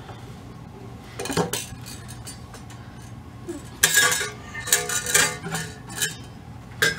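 Light clinks and rattles as a resin ball-jointed doll is handled on and lifted off its metal doll stand: a couple of clicks a little over a second in, a dense cluster of clinking about four to five and a half seconds in, and one last click near the end.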